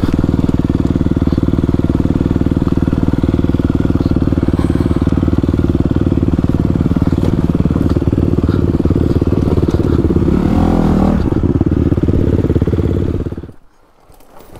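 Honda CRF250RX dirt bike's single-cylinder four-stroke engine running steadily as it is ridden along a trail, heard close up from the rider's position, with a brief change in note around ten seconds in. The engine cuts off suddenly near the end.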